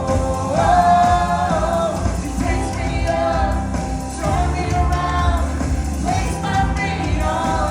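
Live praise music: singing voices over a full band with steady bass and drums.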